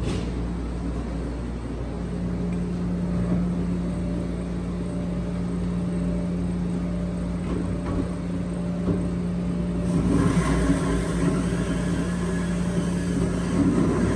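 Steady electric machine hum with a low drone and a held pitch, growing louder and brighter about ten seconds in.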